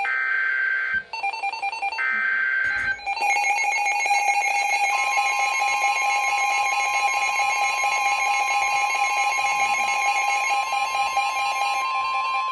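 NOAA Weather Radio emergency alert tones: two short screeching digital data bursts of the SAME alert header, then a rapidly pulsing electronic alarm. About five seconds in, the steady 1050 Hz warning alarm tone joins it and holds, signalling that a warning is about to be read.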